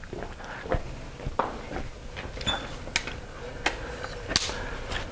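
A few scattered sharp clicks and knocks over low room noise, the loudest about four and a half seconds in, from gear being handled and moved around.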